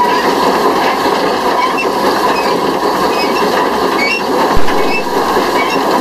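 Small steam tank locomotive running along the line, heard from on board: a steady rumble and rattle of the wheels and motion, with a single sharp thump about four and a half seconds in.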